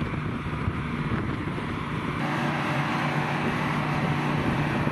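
Hurricane wind blowing over the microphone, a dense steady rush, with a steady low hum underneath that grows stronger about two seconds in.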